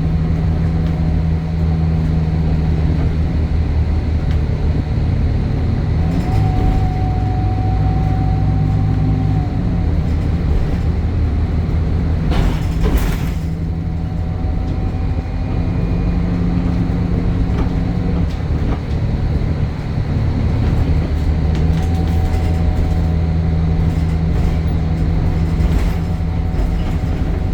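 City bus DAF diesel engine running under way, its hum shifting pitch in steps several times. A thin high whine comes and goes three times, and a brief burst of noise cuts in about halfway through.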